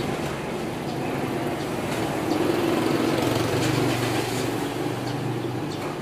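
Steady traffic noise with a low engine hum, swelling a little about two to four seconds in.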